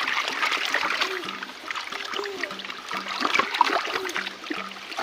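A small stream's water trickling and splashing steadily, with many small splashes.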